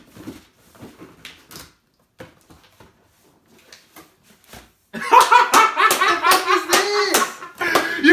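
Faint clicks and rustles of hands on a cardboard shoebox and its lid. About five seconds in, a loud sound with wavering pitched tones starts suddenly and covers the rest.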